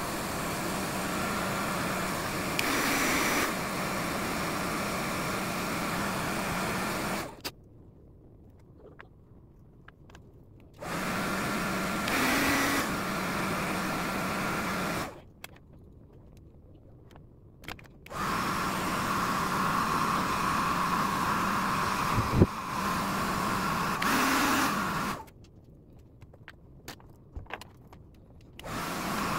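Hair dryer blowing on wet drone electronics to dry them, switched on and off: three runs of steady blowing with a hum, the first and last about seven seconds long and the middle one about four, separated by short quiet pauses, then starting again at the very end. A sharp click comes during the third run.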